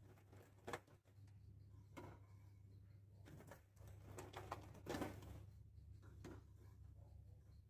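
Faint, scattered clicks and taps of tennis biscuits being laid into a dish, over a steady low hum.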